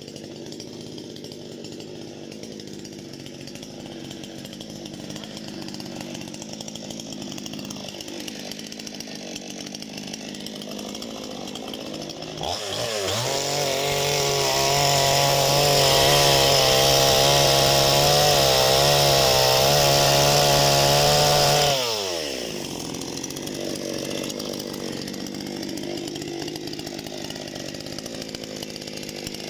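Parma BP-058 two-stroke chainsaw idling, then revved up sharply to full throttle about twelve seconds in and held there for about nine seconds, its pitch wavering as it works, typical of cutting through a log. It then drops back to idle.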